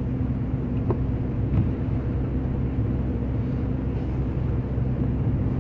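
Fiat Linea sedan driving at steady highway speed on a wet road, heard from inside the cabin: a steady engine hum with road and tyre noise.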